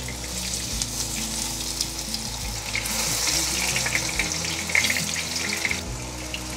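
Gluten-based vegan sausages sizzling as they pan-fry in oil, a steady crackling hiss. The sizzle grows louder from about three seconds in and eases off again near six seconds.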